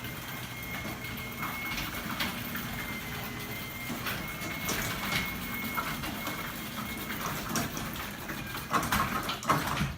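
Chamberlain B730 belt-drive garage door opener running as it opens the door: a fairly quiet, steady motor run with a faint high whine and scattered clicks and rattles from the door. Louder knocks come near the end.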